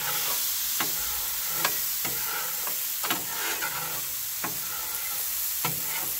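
Chicken thighs and green beans sizzling steadily on a Blackstone flat-top griddle, while a metal spatula scrapes and clicks against the steel cooktop about once a second.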